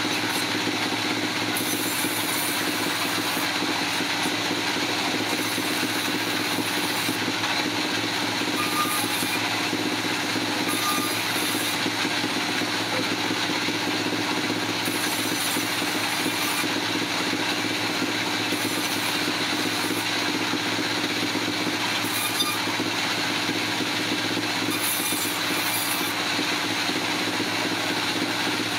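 Heavy machinery running steadily: a continuous mechanical drone with a steady hum that neither rises nor falls, and a high hiss that comes and goes.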